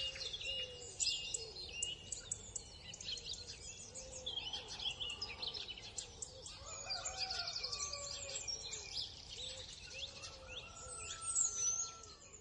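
Faint chorus of many birds chirping and trilling with quick high calls, and a lower call repeating underneath.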